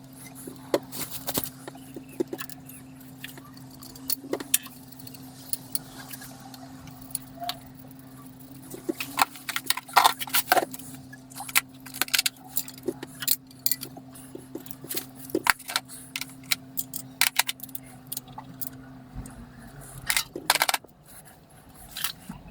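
Hand tools, bolts and metal engine parts clinking and clicking at irregular moments as parts are mounted back on the engine during timing-belt reassembly. A steady low hum runs underneath and stops near the end.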